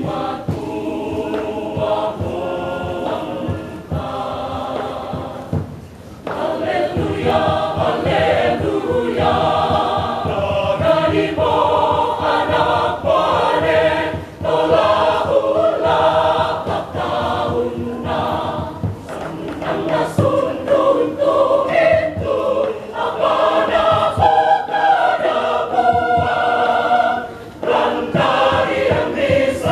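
Mixed choir of women's and men's voices singing in harmony, in phrases with a few short breaks between them.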